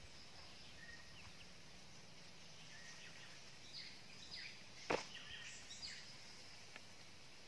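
Quiet outdoor ambience with scattered short bird chirps, and one sharp knock about five seconds in as a knife blade strikes the wooden tree-stump chopping block while slicing fruit.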